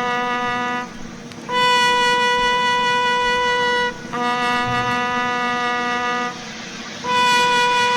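A horn sounding long held notes that alternate between two pitches, each note about two seconds long with short breaks between them.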